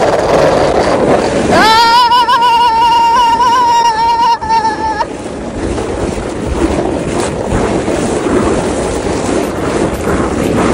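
Snow tube sliding fast down a packed-snow tubing run: loud rushing wind on the microphone with the scrape and rattle of the tube on the snow, and scattered knocks in the second half. About a second and a half in, a person screams one long wavering note for about three seconds.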